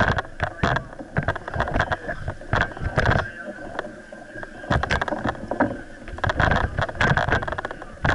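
Wind buffeting and rubbing on a body-worn action camera's microphone: an irregular run of crackles and thumps over a rough rushing noise, easing off for a moment about four seconds in.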